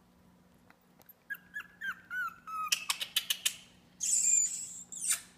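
Puggle puppies whimpering, a run of short high squeaky cries starting about a second in, followed by a quick flurry of clicks and scuffling and a burst of rustling near the end as they tussle.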